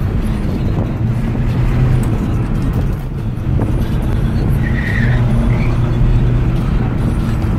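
Volkswagen CC's 2.0 TDI four-cylinder turbodiesel, tuned to 210 hp, running under load while driving, heard from inside the cabin; its note shifts with the throttle. A brief high squeal comes about five seconds in.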